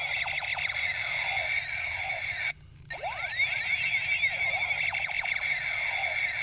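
Electronic toy gun playing its built-in sound effect through its small speaker: a busy jumble of rapid rising and falling whistling sweeps. It cuts out briefly about two and a half seconds in, then starts again.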